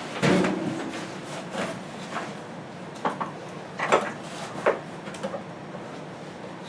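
A series of knocks and clatters from objects being handled, the loudest a knock and scrape about half a second in, then a few separate sharp knocks a little past halfway.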